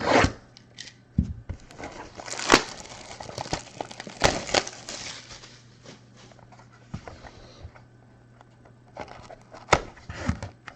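A sealed trading-card box being opened by hand: wrapping crinkled and torn off in several sharp crackling bursts, with cardboard handled in between.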